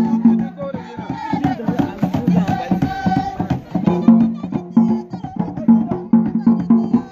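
Voices singing together over quick, dense percussive beats: folk dance music.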